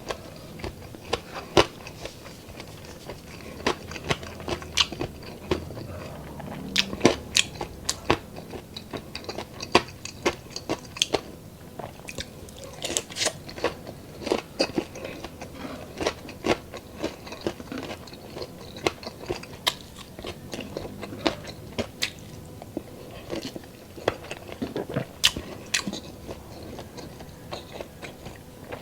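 Close-up biting and chewing of crispy deep-fried chicharon bulaklak (pork intestine), with many irregular sharp crunches.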